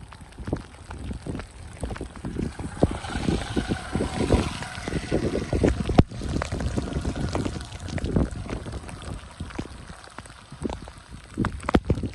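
Gusty wind buffeting the microphone in the rain, crackling and rumbling throughout. A motorcycle engine passes close by about three seconds in and fades as it moves away.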